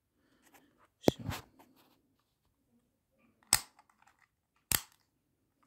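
Two sharp plastic clicks a little over a second apart from the slide switch on an electric heated sheet's hand controller being moved.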